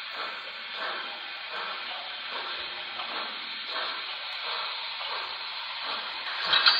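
Sound-equipped HO scale Broadway Limited PRR H10s steam locomotive model chuffing slowly through its onboard speaker, one hissing exhaust beat about every 0.7 s, with a louder burst near the end.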